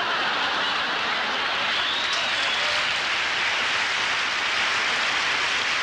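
Studio audience applauding steadily after a comedy punchline.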